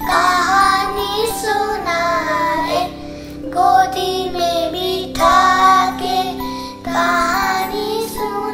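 Background music: a high, child-like voice singing a melody over a steady held drone.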